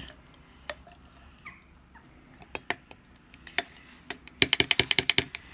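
A spoon stirring ginger, lemon and honey in a jar, knocking against the jar's side: scattered single clicks, then a quick run of about a dozen clicks lasting about a second near the end.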